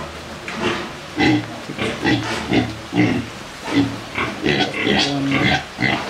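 Pig grunting over and over in short calls, about two to three a second.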